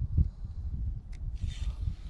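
A spinning reel being cranked on a retrieve, giving a faint scraping whir with a few light clicks. A low uneven rumble of wind and handling on the microphone sits under it, and there is a brief higher rustle about one and a half seconds in.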